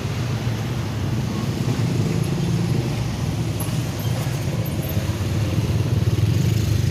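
Motorcycle and car engines running as traffic moves off across a railway level crossing, a steady mixed rumble of engines and tyres.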